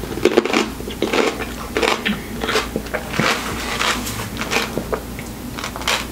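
Close-miked chewing of a mouthful of whole dill pickle topped with whipped cream: repeated crunches of the pickle being bitten down, a little under two a second.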